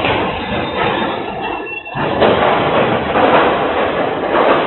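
Freight train derailing: loud, continuous grinding and rumbling of railcars, heard through a home security camera's microphone, easing briefly just before two seconds in and then coming back as loud.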